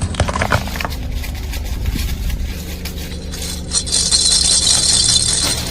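A car's tyre rolling over crunchy objects and crushing them: a run of crackling and clicking over the low hum of the engine. From a little before four seconds in, a loud, steady hiss takes over for about a second and a half.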